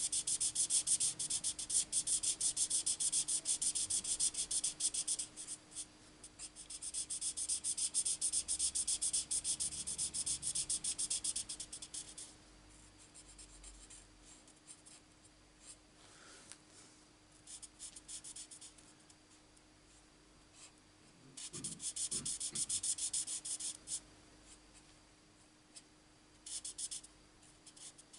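Alcohol marker colouring on cardstock, its tip scratching rapidly back and forth in quick strokes. A dense run lasts about twelve seconds, then the strokes come in short scattered bursts, with a longer burst a little past twenty seconds.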